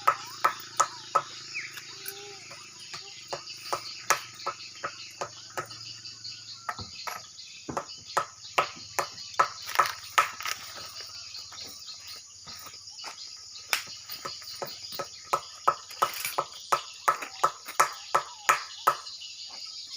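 Swiftlets chirping around a swiftlet house, a long run of short sharp repeated calls, about two to three a second. A low steady hum sits under them and stops about seven seconds in.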